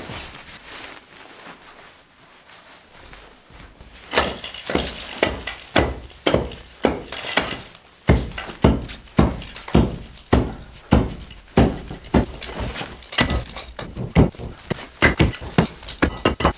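Repeated hand-tool blows breaking up an old floor, with clinking and breaking debris. The blows start about four seconds in and come heavier and steadier, about two a second, from about halfway.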